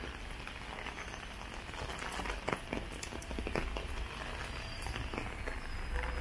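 Steady rain hiss on a wet city pavement, with a low hum underneath and scattered sharp taps about two to four seconds in.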